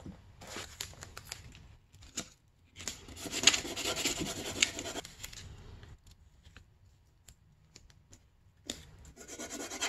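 Sandpaper being handled and taped down to a glass plate with painter's tape: two stretches of rustling, about three seconds in and near the end, with scattered light clicks between.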